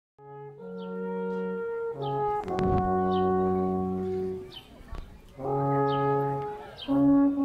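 Two alphorns played together in a slow tune of long held notes, with a brief break about two-thirds of the way through before the playing resumes.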